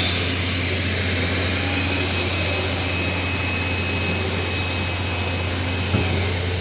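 TIG welding arc running steadily: a constant buzzing hiss over a low hum, with a brief knock near the end.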